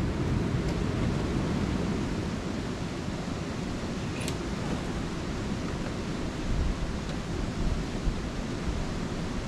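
Steady rushing noise of a mountain creek flowing past camp, with a faint click about four seconds in and a few soft knocks near the end.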